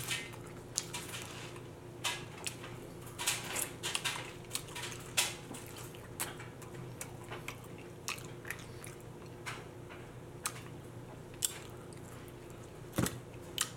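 Close-up eating of bone-in chicken wings: biting and chewing meat off the bone, with irregular wet smacks and crunchy clicks, one of the sharpest near the end. A faint steady hum sits underneath.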